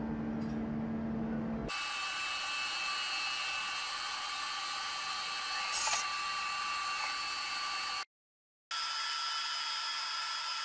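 A low steady machine hum, then about two seconds in an abrupt switch to the high-pitched steady whine of a CNC machine tool cutting a large steel rotor shaft. The whine drops out for a moment near the end and comes back at a slightly different pitch.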